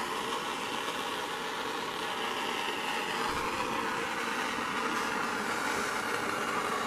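Handheld gas torch flame burning with a steady hiss while heating a copper pipe fitting, the solder running into the joint.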